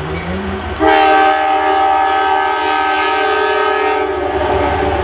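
Amtrak train's locomotive horn sounding one long blast of several notes at once, starting suddenly about a second in and fading near the end, over the steady rumble of the train.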